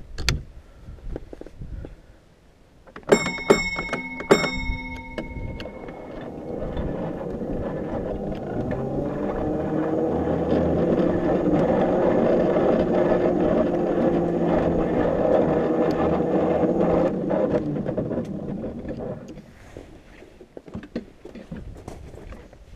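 Small battery-electric locomotive on 7½-inch-gauge track: a few sharp metallic clanks that ring briefly about three to four seconds in, then a running whine that rises in pitch as it gathers speed, holds, and fades away as the train slows near the end.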